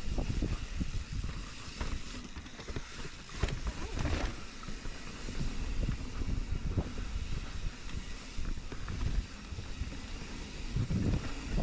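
Wind buffeting the microphone of a mountain biker descending a rough trail, over a continuous rumble with irregular knocks and rattles from the bike on the ground.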